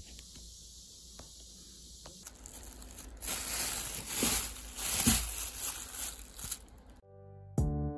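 Clear plastic bag crinkling loudly as a hand grips and presses it around a bagful of figs. Keyboard music with plain piano-like notes begins near the end.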